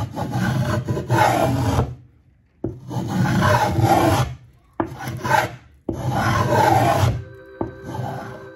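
Spokeshave blade shaving the edge of a walnut tabletop, cutting a chamfer in four long strokes with short pauses between them. Music comes in quietly near the end.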